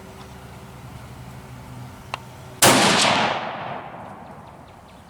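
A single shot from a Remington 700 ADL bolt-action rifle in .243 Winchester, firing an 80-grain handload. A faint click comes half a second before the sharp crack, about two and a half seconds in, and the report echoes and fades over about a second and a half.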